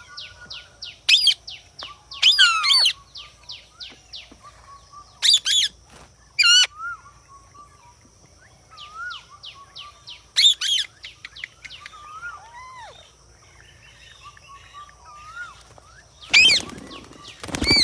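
Captive parrots calling: loud harsh screeches every second or few, with quick runs of short chirps and softer whistled notes in between. The loudest, longest screech comes near the end.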